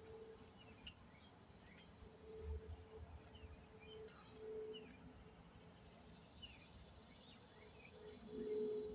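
Insects chirring outdoors in a steady, high, evenly pulsing drone, with scattered faint bird chirps. A low hum comes and goes and swells loudest shortly before the end.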